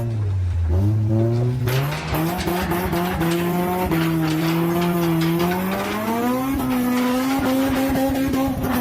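A motor vehicle's engine revving hard, its pitch climbing in stages and holding high near the end.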